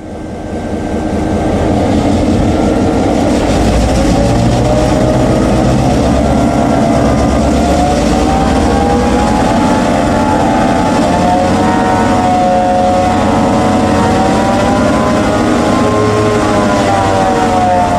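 NSB Di3 Nohab/GM diesel locomotive's two-stroke EMD 567 engine running loud, fading in over the first two seconds. From about eight seconds in its pitch rises and falls several times as the engine speed changes.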